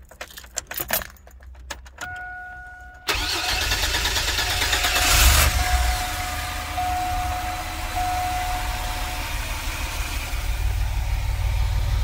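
Keys jangle and click in the ignition, and a dashboard chime sounds about two seconds in. Then the 2004 Chevrolet Astro's 4.3-litre V6 cranks and catches about three seconds in, flares briefly and settles into a steady idle: its first start on a newly fitted fuel injector spider assembly, replaced to cure misfires. A chime keeps beeping over the idle for a few seconds.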